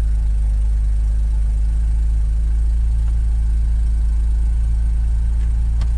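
Porsche Cayman S 987.2 3.4-litre direct-injection flat-six idling steadily after a cold start, with its switchable sports exhaust valves open, heard from inside the cabin. A faint click comes near the end.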